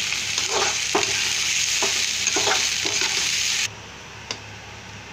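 Sliced onions sizzling in hot oil in a karahi while a metal spatula stirs them, scraping the pan in several short strokes; the onions are being fried until light brown. The sizzle cuts off suddenly about three and a half seconds in, leaving a faint low hum and a single click.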